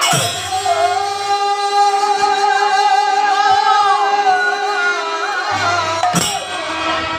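Bengali harinam sankirtan: men singing to harmonium and khol (clay barrel drums), with one long note held through the first few seconds. A single sharp stroke comes near the end.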